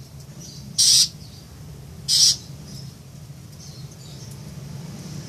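Long-tailed shrike (cendet) giving two short, harsh calls about a second and a quarter apart, with a few fainter, softer notes between them.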